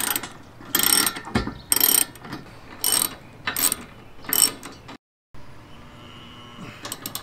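Socket ratchet wrench clicking in short bursts, about one a second, as it tightens nylock bolts. After a short gap, one more quick burst comes near the end.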